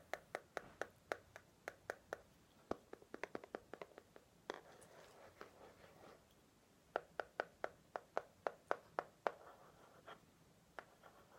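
Close-up ASMR tapping on a small notebook: runs of quick, sharp taps, about four or five a second, with a pause in the middle filled by soft rubbing.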